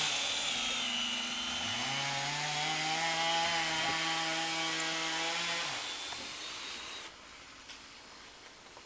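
Electric drill running under load in wood, its motor pitch shifting then holding steady from about a second and a half in. It stops around six seconds in, with fainter noise dying away after.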